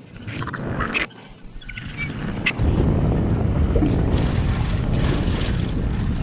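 Safari vehicle driving along a dirt track, its engine and road noise mixed with wind rumbling on the phone's microphone. The rumble gets much louder about two and a half seconds in, and there are a few clicks and rattles before that.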